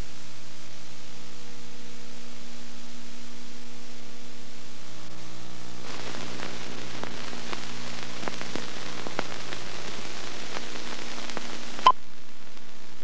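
Steady hiss with a low hum on an old documentary soundtrack. From about six seconds in come scattered crackles and clicks, and one sharp click near the end, after which the hum drops away.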